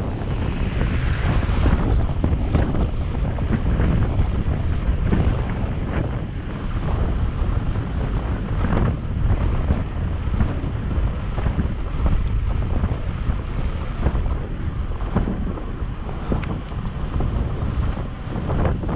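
Wind rushing over the microphone of a camera mounted on a moving road bicycle: a steady, deep rumble.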